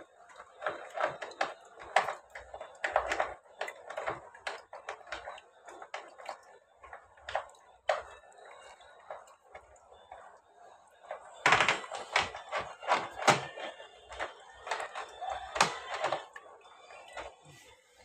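Irregular clicks, knocks and rattles of hands handling the plastic drain tray and metal parts beneath a refrigerator, in two busy stretches with a quieter lull in between.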